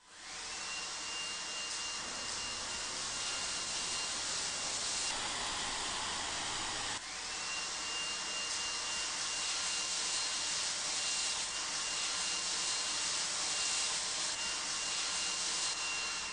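REDROAD 17 cordless handheld vacuum cleaner switched on, its motor spinning up to a steady high whine over a rush of air. About five seconds in the whine fades and the airflow sound changes; at about seven seconds the sound dips briefly and the whine comes back.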